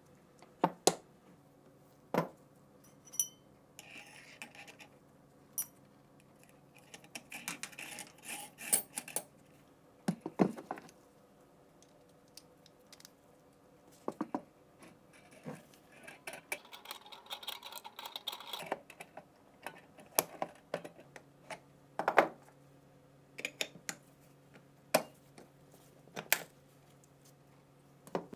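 Small metal parts of an MG3 machine gun being handled during a rebuild: scattered clicks and knocks of metal on metal and on the work surface, with a few stretches of scraping or rubbing.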